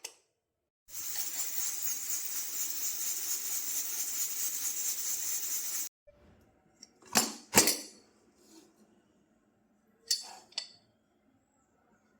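A steady hiss for about five seconds that starts and stops abruptly, followed by a few sharp clinks of metal kitchen utensils against a pot or dish, two close together and then two more.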